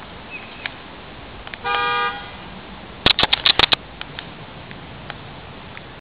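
A car horn toots once, a steady note lasting about half a second. A little after three seconds in comes a quick run of about eight sharp clicks or knocks, the loudest sound.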